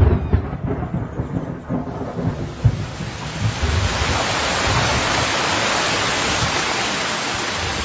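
Thunder rumbling with a few sharp cracks, then heavy rain sets in about two and a half seconds in and keeps pouring as a steady, dense hiss.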